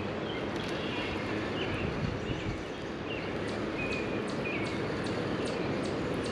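Strong wind rushing over the microphone, with a small bird giving short chirps again and again.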